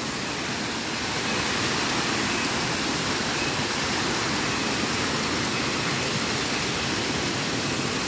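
Small waterfall cascading over rocks: a steady, even rush of falling water.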